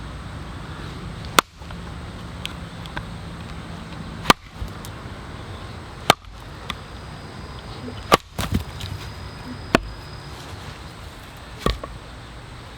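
Wood being chopped with a blade: six sharp strikes, one every one and a half to two seconds.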